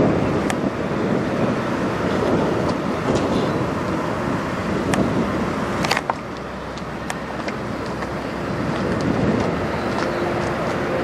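Steady vehicle noise with a few faint clicks. The level drops suddenly about six seconds in.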